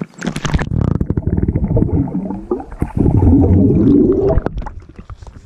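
A swimmer ducking under river water with a splash, then a rush of air bubbles gurgling around his head, heard muffled from underwater. The bubbling dies away about four and a half seconds in.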